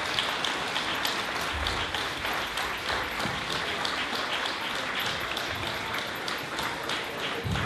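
Applause from a large crowd, many people clapping steadily.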